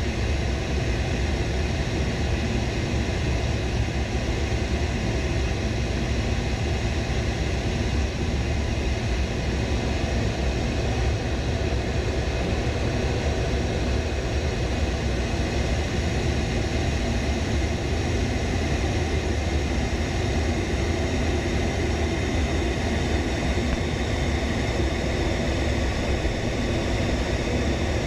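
A-10 Thunderbolt II in flight, heard from inside the cockpit: an even, low rumble of its twin TF34 turbofan engines and the air rushing past, with faint steady tones above it.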